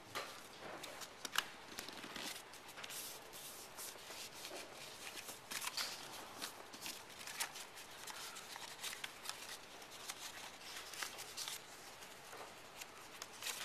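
A sheet of paper rustling and crackling as it is folded and creased by hand into a paper airplane. The crackles come in an irregular run, with one sharper crack about a second and a half in.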